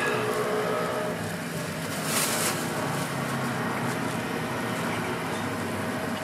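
Steady background rumble of street traffic, with a brief hiss about two seconds in.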